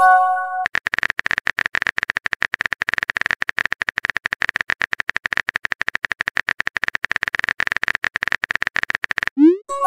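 Texting-app sound effects. A short message chime of a few tones plays first. Then rapid, even keyboard-tap clicks run for about eight seconds while the next message is being typed. Near the end the clicks stop, and a quick rising swoop leads into another chime as that message is sent.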